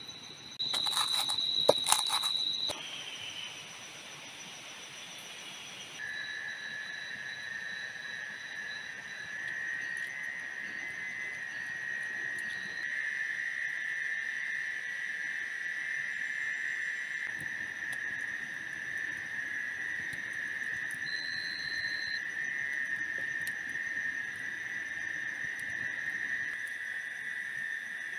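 Insects trilling in a steady, high-pitched chorus, with a lower trill coming in about six seconds in and carrying on. Near the start a louder stretch with a few sharp clicks lasts about two seconds.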